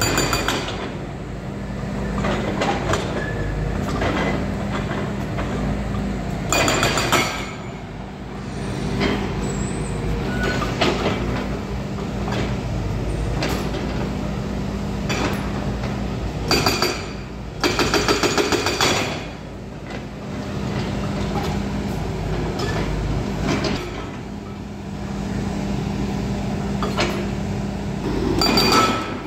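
Volvo excavator's diesel engine running steadily at work, with loud bursts of metal-and-stone clanking and rattling several times as the machine handles and breaks stone.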